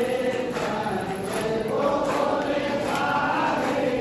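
Hindu temple aarti: a group of voices singing a devotional hymn to the goddess in a steady, sustained chant.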